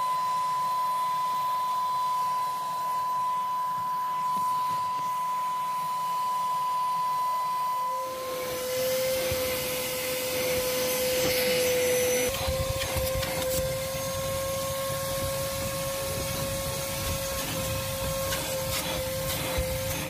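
Prestige Typhoon 05 1200-watt wet-and-dry vacuum cleaner running steadily as its nozzle sucks dust from a car's floor carpet, with a high steady whine over the rush of air. About eight seconds in the whine drops to a lower pitch and the low rushing grows, and the sound then holds steady.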